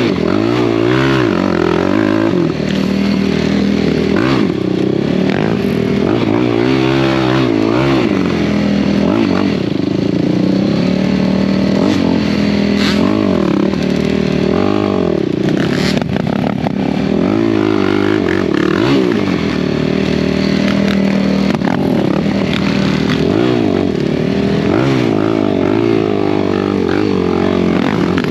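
Off-road vehicle engine running hard, its pitch rising and falling over and over as the throttle is opened and closed. There is one sharp knock a little past halfway.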